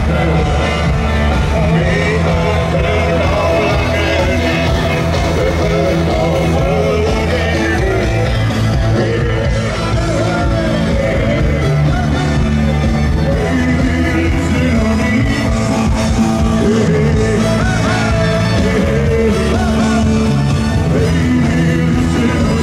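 Loud rock-style music with singing.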